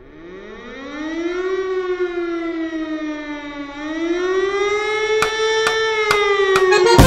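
A siren wailing, its pitch climbing slowly, dipping and climbing again. Four sharp clicks about half a second apart come near the end, just before the music starts.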